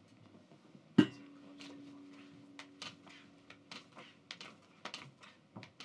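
A sharp knock about a second in, the loudest sound, followed by a faint low hum for a couple of seconds, then a run of light clicks and taps.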